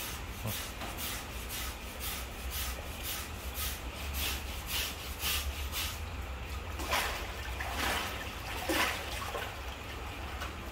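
A hand-held blade tool scraping rhythmically at an elephant's back-foot nail and sole, about three quick strokes a second, cutting back urine-burned tissue. After about six seconds the strokes become fewer and longer.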